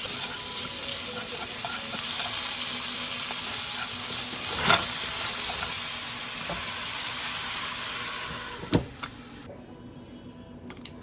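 Food sizzling in a hot frying pan, a steady hiss with a couple of sharp utensil knocks, cutting off abruptly near the end.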